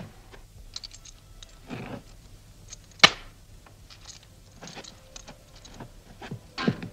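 Small handling noises in a quiet room: scattered light clicks and rustles, with one sharp knock about three seconds in and another near the end.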